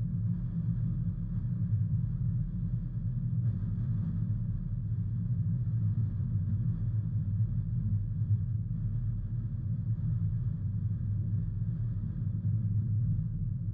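Car driving at a steady speed: a continuous low rumble of engine and road noise that holds even throughout.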